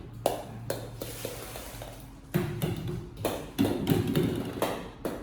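Many small plastic balls clattering and knocking against each other and a hard surface: a run of sharp clicks that grows busier and louder about two seconds in.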